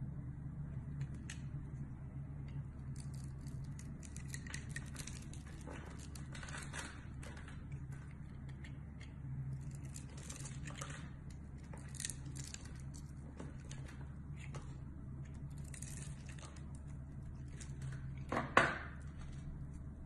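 A utility knife blade cutting and scraping into a bar of soap: short, crisp scrapes and slices come irregularly, with one louder cut near the end. A steady low hum runs underneath.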